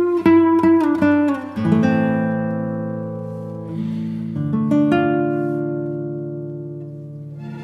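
Background music on acoustic guitar: a quick run of plucked notes, then chords left to ring out and fade, with a fresh chord struck about halfway through.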